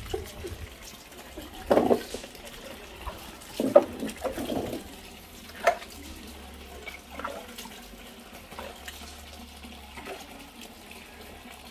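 Water running and splashing onto a wet concrete floor during a dog's bath, with a few short louder sounds in the first six seconds.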